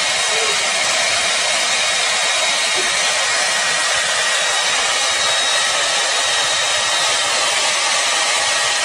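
Hair dryer running steadily: an even rushing hiss with a faint high whine.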